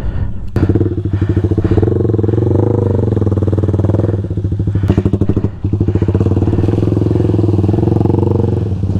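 Small enduro dirt bike's engine running steadily under throttle with a fast pulsing note, easing off briefly twice near the middle.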